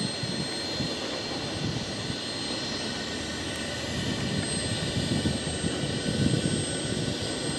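Freight train of tank cars and boxcars rolling past, with the steady noise of steel wheels on rail. Low swells of rumble come in partway through.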